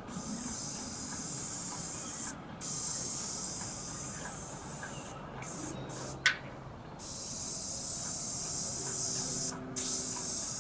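Paint sprayer spraying in long bursts, a loud high hiss that cuts off and starts again sharply several times. A short, sharp falling squeak comes about six seconds in.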